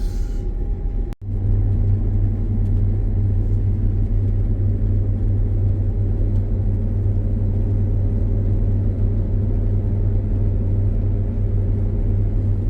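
Combine harvester running steadily under load, heard inside the cab as a constant low drone. The sound drops out for an instant about a second in.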